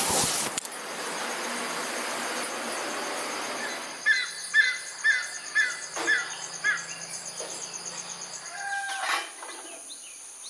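Birds calling: a run of six short, hooked chirps about two a second, then a couple of whistled notes, over a high steady insect buzz. A steady rushing noise fills the first few seconds.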